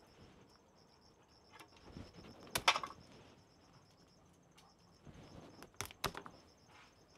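Faint, high, rapid insect chirping, broken by a few sharp knocks a little before the middle and again about six seconds in.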